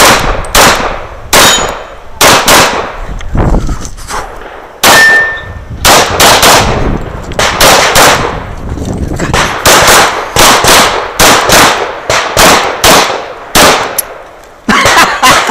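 Semi-automatic pistol fired rapidly at close range, about thirty shots mostly in quick pairs, with brief pauses between strings as the shooter moves between positions.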